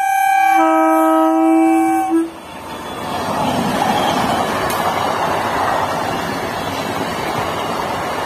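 Horn of a 12-car MEMU electric train sounding for about two seconds, a second, lower tone joining about half a second in. The horn is followed by the steady rush of the train's wheels and coaches passing close by.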